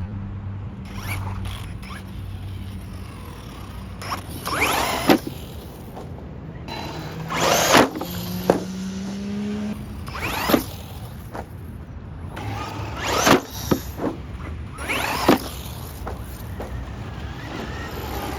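Electric motor of a radio-controlled car whining as it speeds up and slows down in repeated passes. Several sharp knocks come among the passes.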